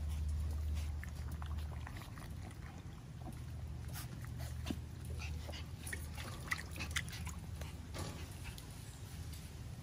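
Miniature Schnauzer puppies giving short, high squeaky yips and whimpers, most of them about halfway through, over a steady low hum.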